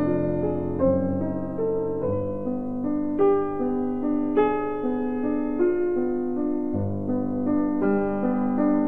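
Background piano music: a slow run of held notes and chords, a new note struck about once a second.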